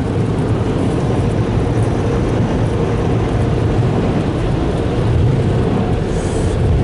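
Touch-free car wash air dryer blowing steadily over the car: a loud, even rush of air.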